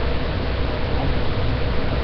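Steady hiss with a low hum underneath and no distinct events.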